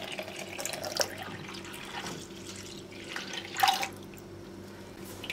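Milk pouring from a jug into a steel pot of cooked rice, a stream that thins out to drips. A short knock comes about three and a half seconds in.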